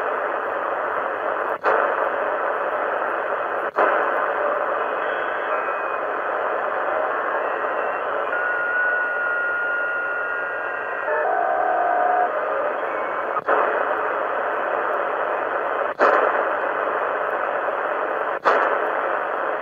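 ATS25X1 shortwave receiver's speaker hissing with 20-metre band noise in USB (single-sideband) mode as the receiver is tuned up the band. Short steady whistling tones of signals drift in and out near the middle. The audio cuts out for an instant with a click about five times.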